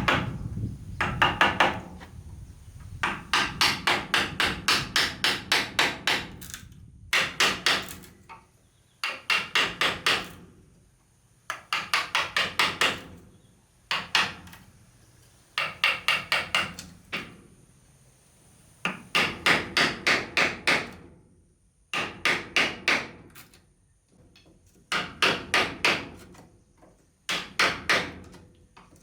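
Hammer striking wood in quick runs of about five blows a second, each run lasting a second or two, with short pauses between runs.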